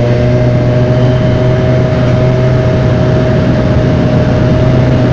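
Honda Dio AF18 two-stroke scooter engine running at a steady, even pitch while riding along, with wind and road noise rushing over it.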